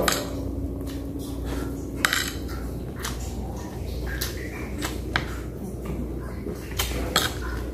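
Metal spoon clinking and scraping against a plate of noodles in scattered, irregular clicks, over a steady low hum.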